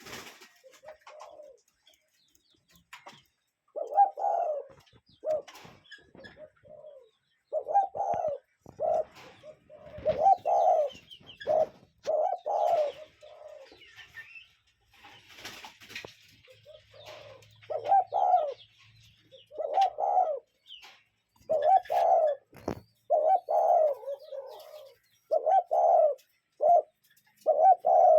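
Cuckoo calling again and again, low hooting notes in short repeated groups, with a few sharp clicks in between.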